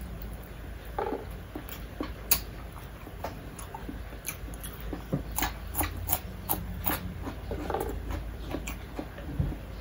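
Close-up eating sounds of a person chewing with her mouth: wet lip smacks and sharp clicks coming irregularly, many times over.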